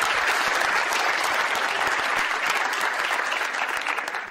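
Audience applauding, a steady clatter of clapping hands that dies away at the end.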